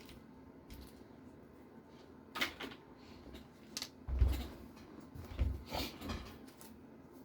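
Scattered knocks and rustles of small parts and packaging being handled on a bench, with a couple of duller thumps about four and five and a half seconds in.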